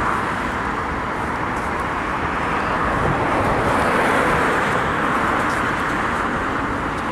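Road traffic noise: a steady hiss of car tyres on the road, swelling and easing off again about four seconds in as a vehicle goes by.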